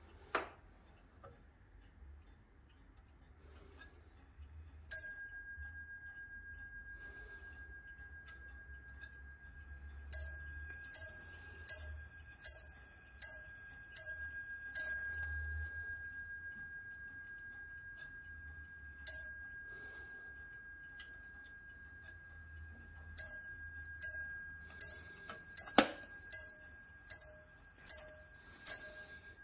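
The bell strike of a Japy Frères eight-day French mantel clock: a single ringing blow, then a run of eight blows a little over half a second apart, another single blow, then a run of about nine, each note ringing on and fading. A sharp knock falls in among the second run, and there is a click near the start.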